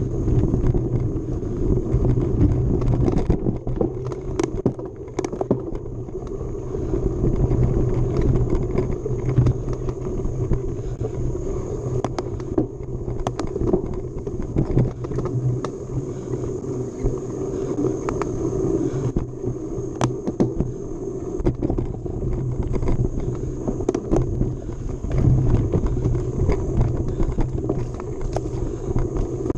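Mountain bike being ridden along a dirt trail: a steady rumble of ride noise on the camera, broken by frequent sharp clicks and rattles from the bike over the ground.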